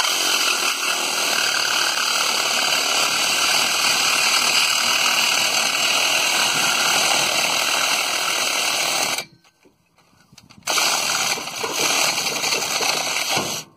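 Craftsman 19.2-volt cordless reciprocating saw cutting through a car's exhaust pipe. It runs steadily for about nine seconds, stops for a moment, then cuts again for about three seconds.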